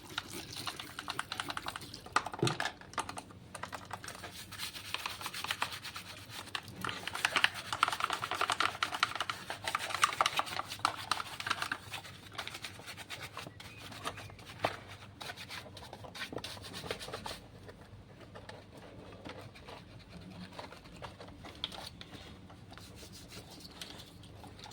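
Scrubbing and scraping on dirty washing-machine parts, with many small clicks and knocks. Louder in the first half, quieter after about 17 seconds.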